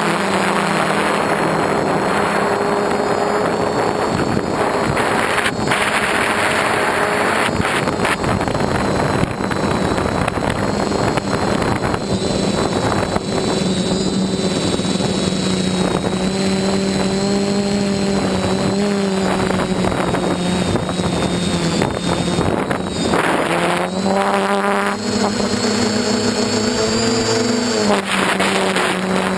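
DJI F450 quadcopter's electric motors and propellers buzzing steadily in flight, over a rushing wind noise. Near the end the pitch climbs and then drops back suddenly as the throttle changes.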